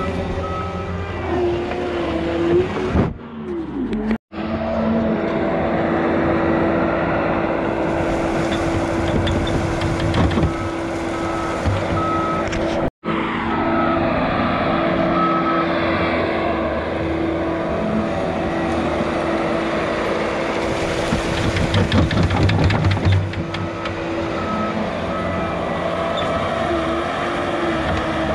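John Deere compact track loader's diesel engine running under load as it pushes and spreads backfill dirt, with its backup alarm beeping at times when it reverses.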